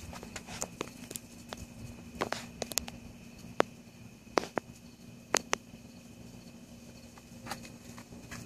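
Scattered sharp clicks and taps at irregular moments, several close together about two, four and five seconds in, over a steady low hum.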